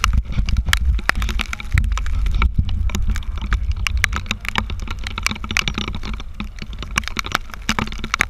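Rain and spray hitting the camera housing as many quick, irregular ticks, over a low rumble of wind on the microphone.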